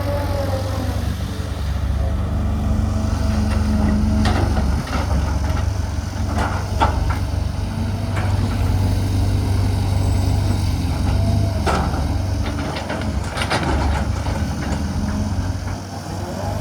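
Cat 320GC hydraulic excavator's diesel engine running steadily under work, with a few sharp metallic clanks scattered through it.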